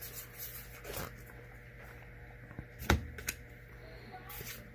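Trading cards being handled and flipped through, with short rustles and light clicks and a single sharp knock about three seconds in.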